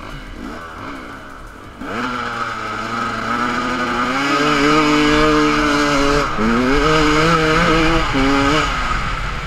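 KTM 250 EXC two-stroke enduro motorcycle engine revving hard under acceleration. It is quieter with short revs for the first couple of seconds, then loud as it climbs through the gears, with a brief drop in revs at a gear change about six seconds in.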